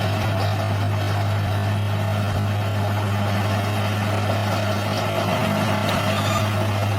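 Large bulldozer's diesel engine running steadily at a constant pitch, with a deep even hum.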